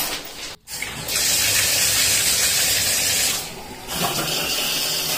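Shower running: a steady spray of water, dropping away briefly about half a second in and again around three and a half seconds in.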